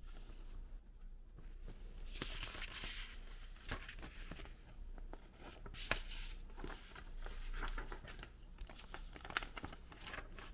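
Packaging being handled by hand: paper or plastic wrapping torn and crinkled in several irregular rustles, with scattered small clicks and knocks.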